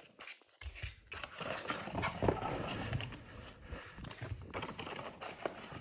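Cardboard blaster box of trading-card packs being handled, its packs slid out and set down on a desk: a run of rustles, scrapes and light taps, starting after a brief quiet moment about half a second in.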